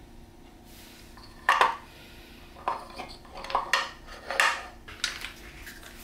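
Three small 20 mm wooden posts clacking and knocking together as they are picked up and handled: one sharp knock about a second and a half in, then a run of lighter knocks.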